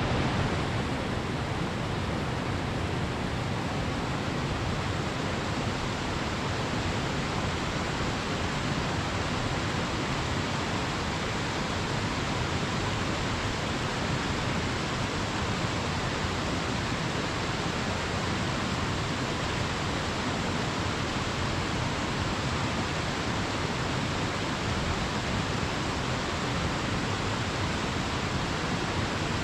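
Waterfall pouring: a steady, even rush of falling water with no breaks.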